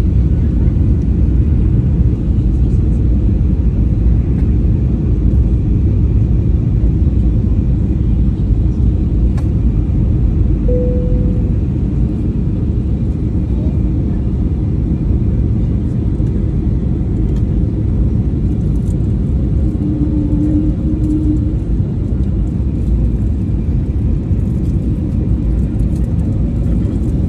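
Steady cabin noise inside an Airbus A321neo airliner descending to land: an even, low rush of airflow and engine noise with no change in level.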